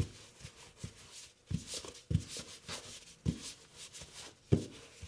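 A cup used as a rolling pin, rolled back and forth over pizza dough on a floured counter: soft rubbing with irregular knocks, the loudest about four and a half seconds in.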